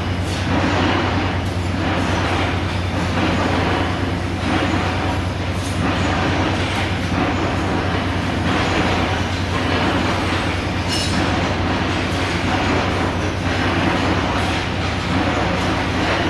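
Industrial machinery running continuously: a steady low hum under a constant rushing noise that swells and eases unevenly every second or two.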